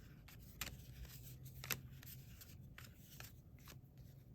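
Faint sliding and flicking of Topps Allen & Ginter baseball cards being thumbed through by hand, with a few short, crisp card flicks.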